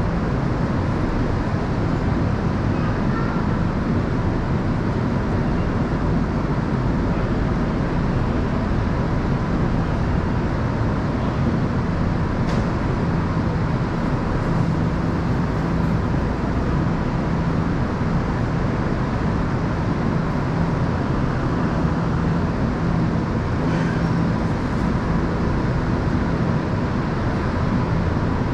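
Steady hum and rumble of an electric commuter train standing at a covered station platform, its onboard equipment running, with a faint constant high tone over it.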